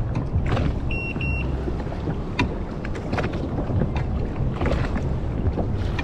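Wind buffeting the microphone and small waves slapping against the hull of a drifting jet ski, with scattered light knocks. Two short high beeps sound about a second in.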